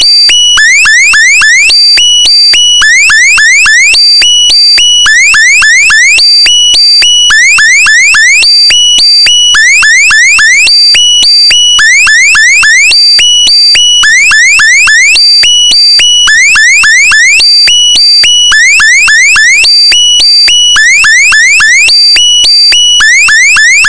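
Loud electronic alarm tone looping: a quick run of rising chirps followed by steady high-pitched beeps, repeating about every two seconds.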